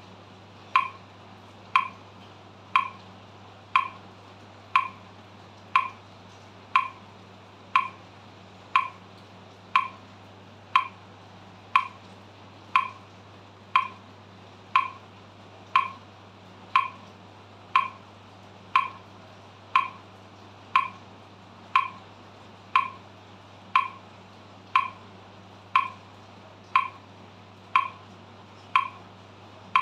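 Metronome clicking steadily at 60 beats per minute, one short sharp click each second.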